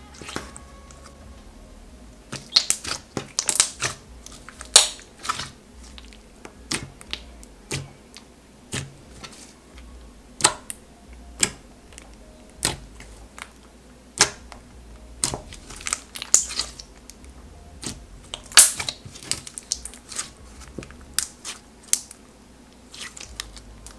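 Thick clear glitter slime being squished, pressed and folded by hand. It gives irregular clicks and pops, roughly one every second or so, some much louder than the rest.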